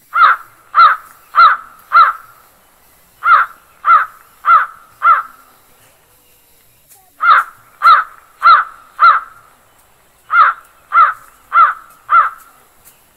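A crow cawing: four caws about half a second apart, repeated in four groups with short pauses between them.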